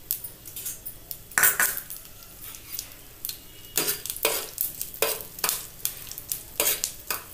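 A metal spoon scraping and knocking against a frying pan as cumin and fennel seeds are stirred in hot oil, with a faint sizzle underneath. The strokes come irregularly, the loudest about a second and a half in.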